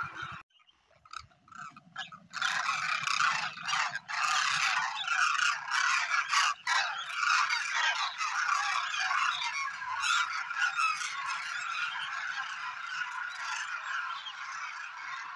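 A large flock of demoiselle cranes calling, with many loud, overlapping trumpeting calls blending into a continuous clamour. The calling breaks off briefly near the start and comes back at full strength about two seconds in.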